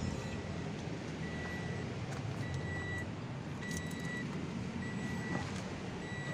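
A vehicle's electronic warning beeper sounding a steady, evenly spaced high beep about once a second, over the low, steady hum of an engine running.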